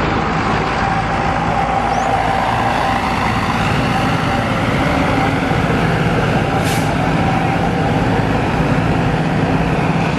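Tour bus's diesel engine running steadily, with one short, sharp hiss of air about two-thirds of the way through.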